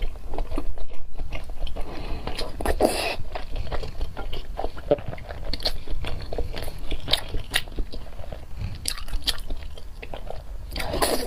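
Close-miked eating sounds: a person chewing and biting food, with many small irregular mouth clicks, over a low steady hum.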